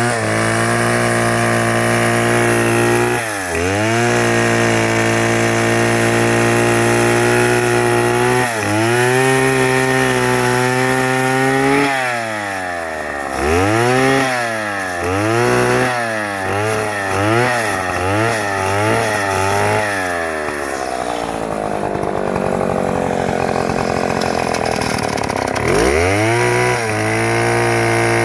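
Chainsaw running at high speed, its pitch dropping and recovering several times, with a quick run of dips about once a second in the middle. It then runs lower for several seconds before picking back up near the end.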